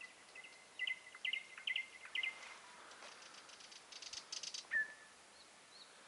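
Small birds singing: quick phrases of short, high chirps, then a fast, dry rattling trill past the middle, followed by more whistled notes.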